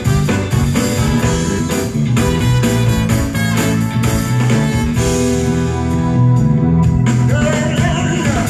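Live band playing a song, with drum kit, electric guitar and trumpet.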